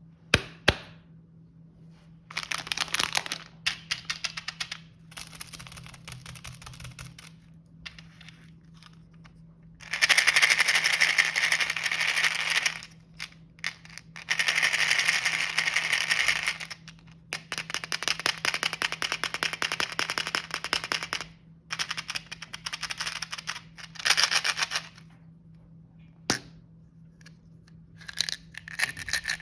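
Crinkly plastic snack packaging handled close to the microphone, in crackling bursts of one to three seconds separated by short pauses. A faint steady low hum runs underneath.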